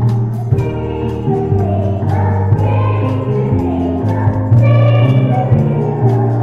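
A group of children singing a song with instrumental accompaniment.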